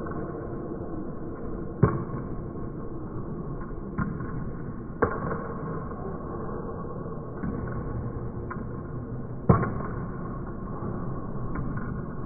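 Table tennis ball knocking sharply off rubber rackets and the table in a forehand topspin drive practice rally, one crisp knock every second or two over a steady background hum.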